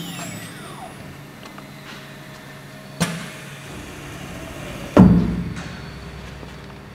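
CNC router with a horizontal drilling spindle: a whine falling in pitch as the spindle winds down in the first second, then a steady machine hum. Two sharp knocks come about 3 and 5 seconds in; the second is the loudest and rings briefly.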